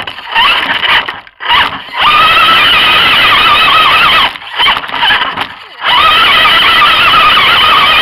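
Electric motor and gearbox of an RC scale crawler whining steadily under throttle. The whine drops out briefly about a second in and again near the middle, as the throttle is let off, then picks up again at the same pitch.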